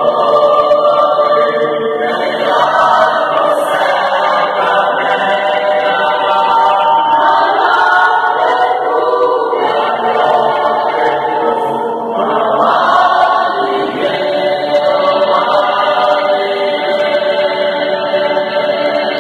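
Mixed men's and women's church choir singing a Portuguese gospel hymn together in sustained phrases.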